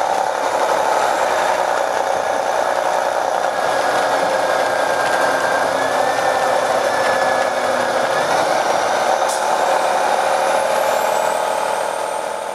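MCI D4500 coach's Detroit Diesel Series 60 diesel engine running, heard from inside the bus: a steady drone with faint whining tones that drift and rise in pitch toward the end, fading out in the last second.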